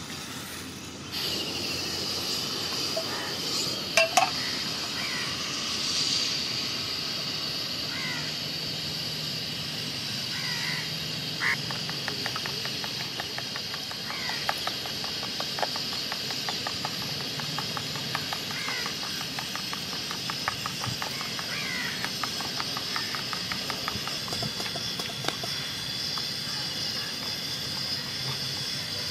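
A metal spoon beating eggs in a plastic bowl, a long run of rapid clicks, over a steady hiss that starts about a second in. Two sharp knocks come early on, and short bird calls sound now and then.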